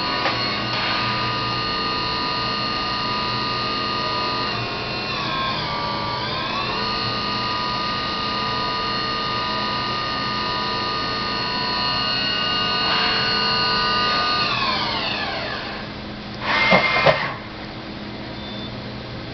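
Okuma Cadet Mate CNC vertical mill's spindle running up to speed with a rising whine, dipping briefly and coming back up, holding steady, then winding down with a falling whine. About a second after it stops there is a short, loud burst of noise.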